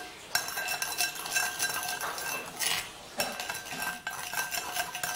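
A spoon stirring old slime that has melted watery and is gritty with kinetic sand, in a glass bowl: wet squelching and crackling with clicks of the spoon against the glass. The stirring dips briefly at the start and again about three seconds in.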